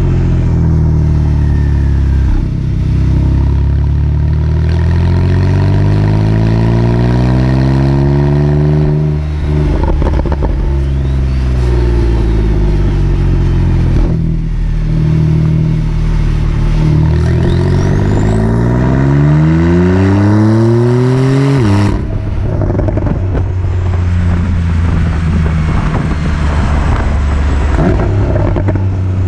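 Porsche 911 (991.2) Carrera 4S twin-turbo flat-six through its sport exhaust, rising steadily in pitch for several seconds, dropping back with a short burst of crackles about nine seconds in, then rising again and cutting back abruptly to a steady low note near the end.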